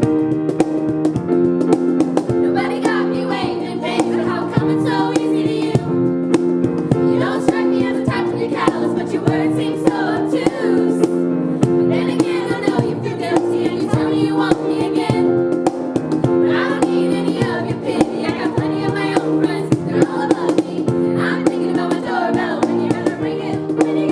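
A band playing a song: sung vocals over held chords and a steady beat.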